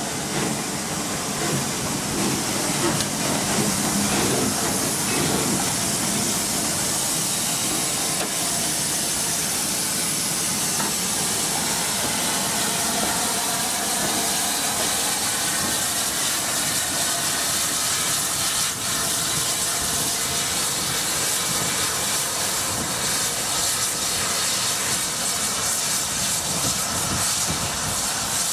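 Steady hiss of escaping steam from the Bulleid West Country class 4-6-2 steam locomotive No. 34027 'Taw Valley'.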